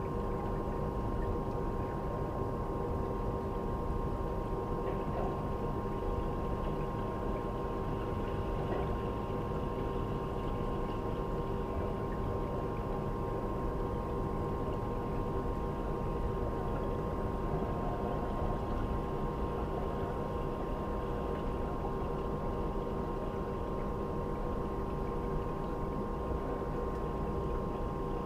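A steady mechanical hum over an even rushing noise, holding several constant tones without change.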